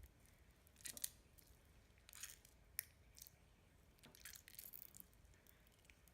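Faint sticky squelches and clicks of dense powder-and-water slime being kneaded by hand, coming in a few short clusters.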